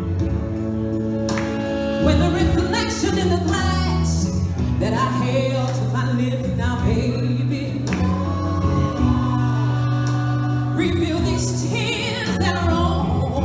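Music: a song with sung vocals over a steady bass line.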